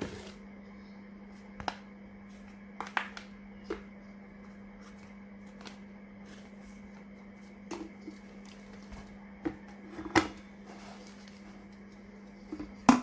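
Scattered clicks and knocks of objects being handled, over a steady low hum; the loudest knocks come about ten seconds in and at the very end.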